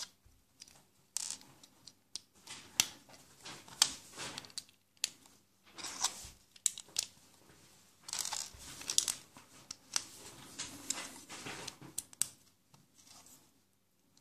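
Plastic Lego-style bricks clicking and rattling as they are handled, snapped together and picked up off a wooden tabletop, in irregular short clicks and scrapes that thin out near the end.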